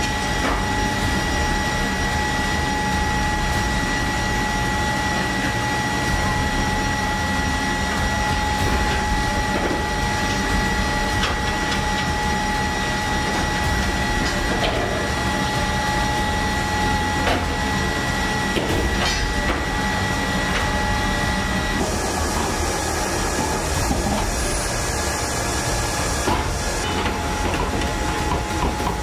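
Steady aircraft turbine whine over a loud rush of noise, with a few faint metallic clanks as loading ramps are handled. About 22 seconds in, one whine tone drops out and a brighter hiss takes over.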